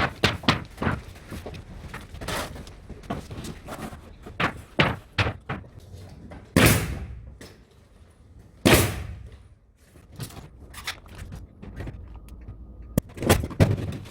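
Scattered knocks and clatter of carpentry work on a building site, with two loud bangs about two seconds apart in the middle that ring on briefly in a bare room.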